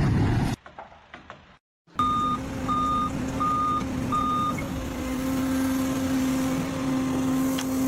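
Vehicle reversing alarm beeping four times at an even pace over the steady hum of a running engine. The beeps start about two seconds in, after a short near-silent gap, and the engine keeps running after they stop.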